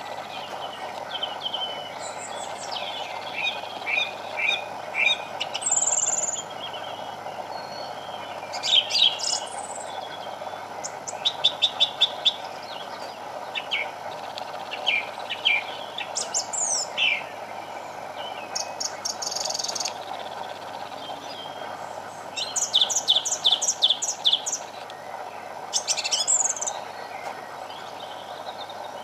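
Song thrush singing: short, varied phrases with pauses between them, many made of one sharp note or figure repeated several times in quick succession.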